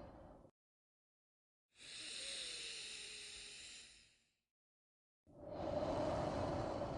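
Slow, deliberate human breathing for a relaxation breathing exercise, each breath cut off by complete silence. One breath trails off in the first half second. A hissy breath lasts about two and a half seconds from around two seconds in, and a fuller, lower breath begins a little after five seconds.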